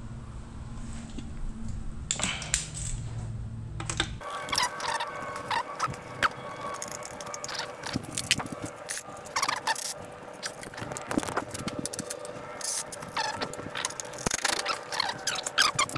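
Small metal hand tools and bits being handled: irregular clicks, clinks and scrapes. A low steady hum is under the first few seconds and stops abruptly about four seconds in.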